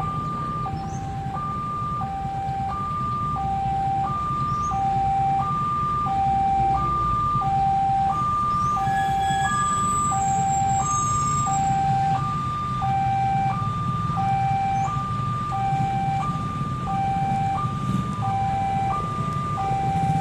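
Railway level-crossing warning siren sounding a two-tone alarm: a high and a low tone alternate, each lasting about half a second, repeating steadily over a low rumble.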